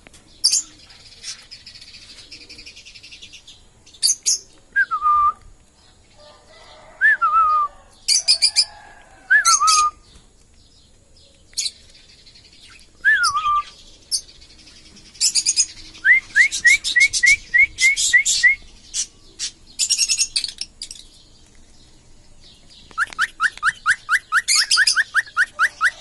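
Small parrots chirping and whistling: scattered high chirps, a few falling whistled notes, then fast runs of short rising notes twice in the second half.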